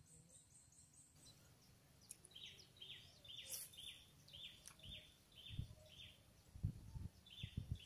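Faint bird calls: a quick run of high chirps in the first second, then a bird repeating short notes that fall in pitch, about two a second. A few low thumps near the end.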